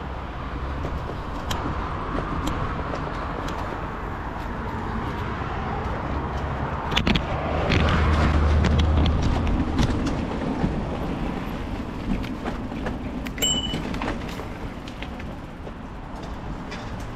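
Road traffic passing steadily, swelling loudest about halfway through with a low rumble. Scattered sharp clicks and knocks sound throughout.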